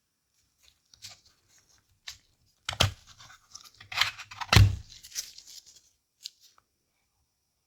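Handling noise from a Nintendo DSi XL handheld console being tested: scattered clicks and scraping rustles, with two louder knocks, about three and four and a half seconds in.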